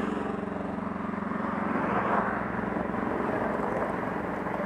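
Road traffic: a vehicle drives past, loudest about two seconds in, over a steady engine hum.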